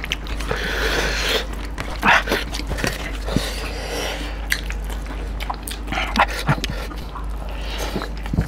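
Two people eating rice and beef curry with bamboo shoot by hand: wet chewing and lip-smacking, with fingers squishing through the curried rice. The sounds come in short, irregular clusters of clicks and smacks.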